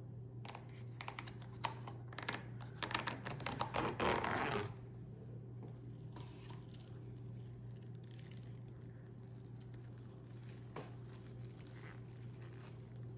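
Close handling noise from the food and tableware: a dense run of quick clicks and crackles for about four seconds, loudest just before it stops, then only a few faint taps, over a steady low hum.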